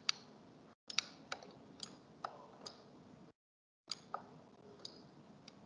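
Scattered single clicks of a computer mouse and keyboard, about eight or nine sharp, quiet clicks at irregular spacing, with faint room noise between.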